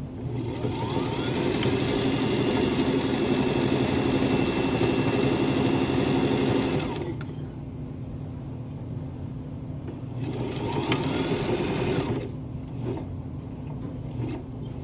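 Domestic electric sewing machine stitching through pinned layers of shirt fabric in two runs: a long one of about six seconds, then after a pause a shorter one of about two seconds.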